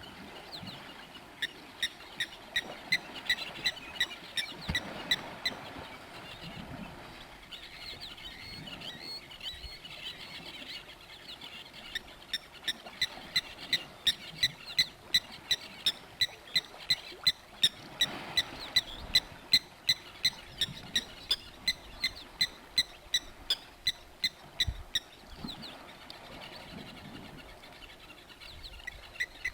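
An animal calling: a short, high note repeated evenly about three times a second, in long runs that are loudest from about twelve to twenty-five seconds in, over faint outdoor background.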